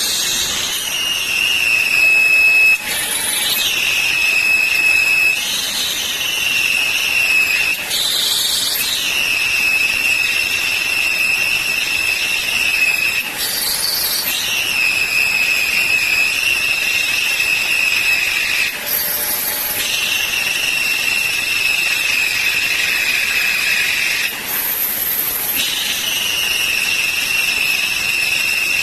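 DMG MORI vertical machining centre milling a small metal part: a steady high-pitched cutting whine, broken every few seconds by a short hiss.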